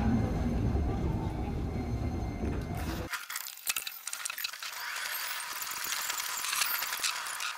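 Background music: a dense, deep section stops abruptly about three seconds in, leaving only thin crackling, glassy high sounds.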